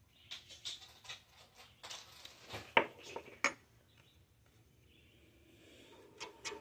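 A spoon clinking and scraping lightly against a pan of homemade BBQ sauce, with two sharper clinks near the middle.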